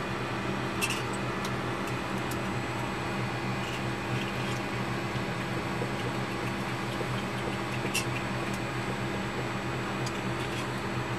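Steady hum of fans and electrical equipment in the cockpit of a parked Lockheed L-188 Electra airliner, with a few faint clicks, the clearest about a second in and again about eight seconds in.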